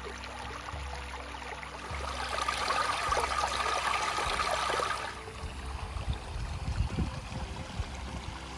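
Stream water rushing and splashing over rocks, louder for about three seconds in the middle and changing abruptly about five seconds in, with a few low bumps near the end.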